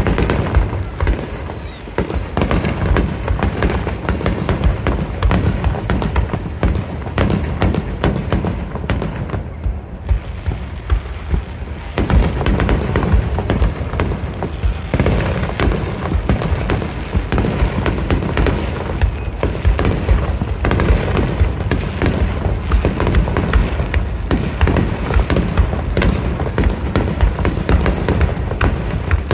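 Aerial fireworks bursting in a dense, continuous barrage of booms and crackles, many bursts a second; the barrage eases briefly about ten seconds in, then picks up again.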